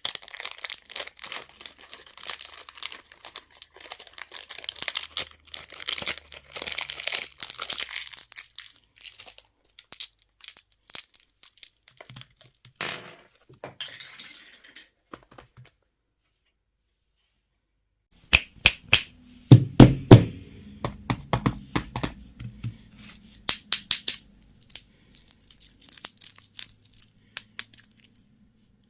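Plastic candy and toy packaging being crinkled and torn open, with dense crackling for the first several seconds. After a short silent gap, sharp clicks and knocks of hard plastic pieces being handled follow, with a few low thuds.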